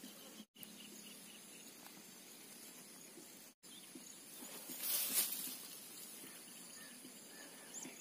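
Faint outdoor field ambience: a steady hiss that drops out twice for an instant, a brief rushing swell about five seconds in, and a few faint bird chirps near the end.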